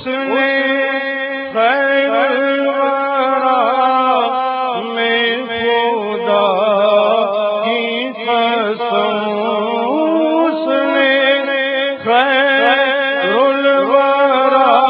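Naat, an Urdu devotional song in praise of the Prophet, sung by a male voice in long held phrases with gliding, ornamented notes over a steady low drone.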